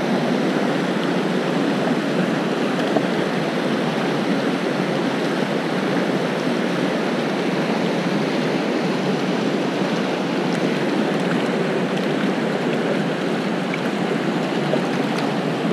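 Steady rushing of river rapids, water running fast over rocks.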